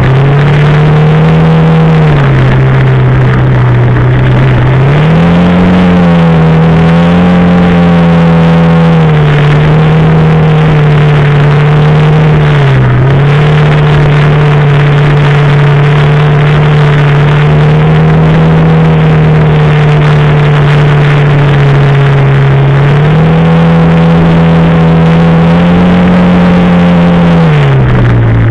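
Quad bike (ATV) engine running close by under throttle while riding. The engine note holds steady for long stretches and dips and picks back up several times as the rider eases off and opens the throttle again.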